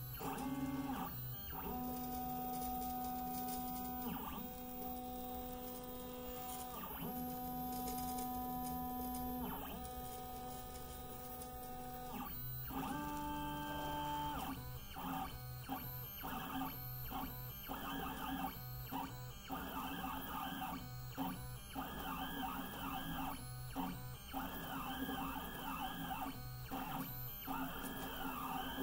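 MPCNC stepper motors singing as the pen-plotting gantry moves. For the first half the tones are steady and held for a few seconds at a time as it draws long straight lines. From about halfway they turn choppy, with rapid rising and falling tones and short breaks as it draws small circles.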